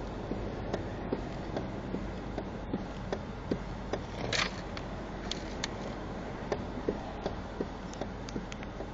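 Toyota Corolla engine idling steadily, with light regular ticks about two to three times a second and a brief rasp about four seconds in.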